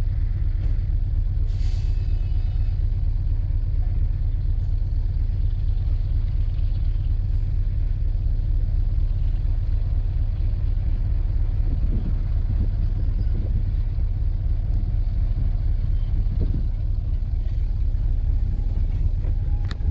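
Class 31 diesel locomotive 31601's English Electric V12 engine running steadily as the locomotive moves slowly forward, with a short burst of air-brake hiss about a second and a half in.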